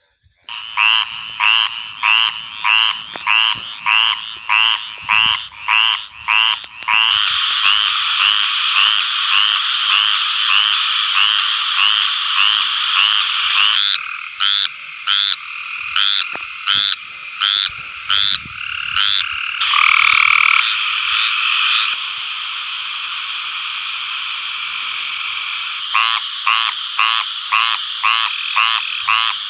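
Male tree frogs giving their mating calls in a run of separate recordings: quick repeated calls at first, then a dense steady chorus. About halfway, a Cope's gray tree frog calls in an even series about one and a half times a second, and near the end a squirrel tree frog gives quick repeated calls, about three a second, its throat sac swelling with each.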